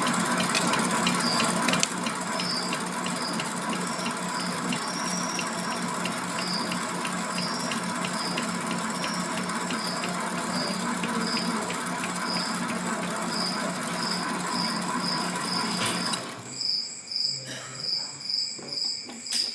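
MX 600A mini lathe running under power while thread-cutting brass hex stock, its motor humming and its gear train ticking steadily. The machine stops about three-quarters of the way through.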